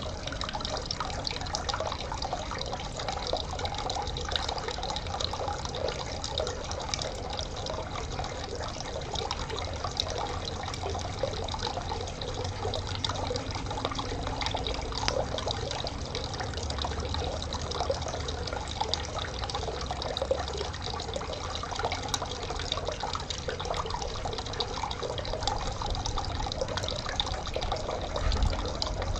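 Stream water trickling and splashing steadily, full of small drips and gurgles, with a short low rumble near the end.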